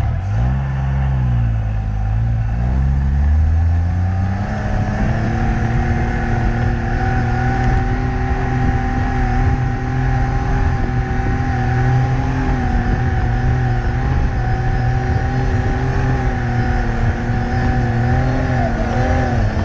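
Classic trials car's engine pulling under load up a steep muddy climb. The revs dip about a second in, rise again over the next few seconds, then hold steady and high.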